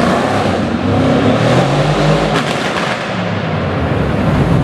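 Dodge Challenger SRT's V8 exhaust as the car pulls away, with a short burst of sharp exhaust cracks about two and a half seconds in.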